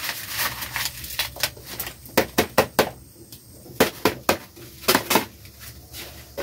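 Dry maize husks being stripped from the ears by hand: crisp tearing and crackling snaps, irregular and bunched in quick clusters about two, four and five seconds in, with rustling of the dry leaves between.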